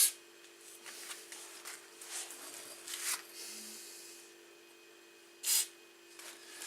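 Aerosol spray can hissing in short bursts: penetrating spray squirted onto the exhaust bolts to soak in before they are undone. The strongest bursts come right at the start and about five and a half seconds in, with fainter ones between.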